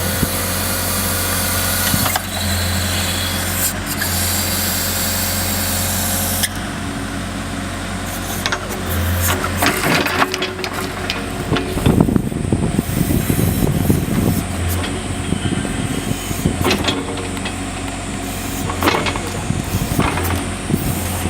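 Compact loader engine running steadily while its backhoe attachment works, with scattered knocks and clanks and a rougher rumbling stretch near the middle.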